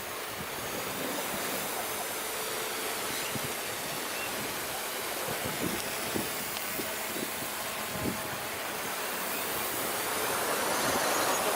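Steady rush of wind and sea on a sailboat under way, with wind buffeting the microphone and scattered short low thumps.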